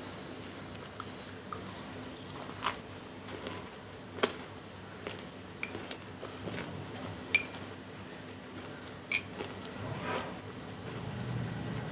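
Metal spoon clinking and scraping in a glass bowl of slate pencil and banslochan chunks: scattered sharp clinks, four louder ones a couple of seconds apart, some with a short glassy ring.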